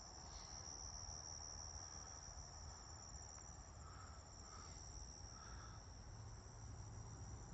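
Faint evening insect chorus, likely crickets: a steady high trill with a fast pulsing edge, over a low rumble.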